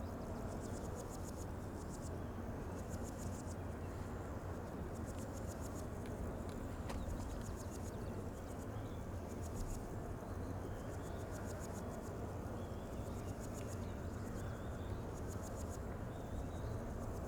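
Outdoor nature ambience: insects trilling in repeated pulsed bursts, with a few faint bird chirps over a steady low rumble.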